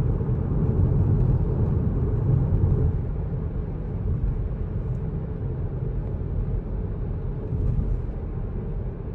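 Car cabin noise while driving: a steady low road and engine rumble, easing slightly about three seconds in.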